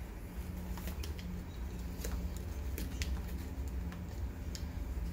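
Scattered faint clicks and light rustling over a steady low hum.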